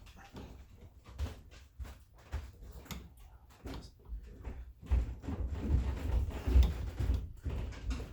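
Irregular clicks, knocks and handling clatter of a front sight tool working on a stuck sight screw in a pistol slide, getting busier and louder about halfway through.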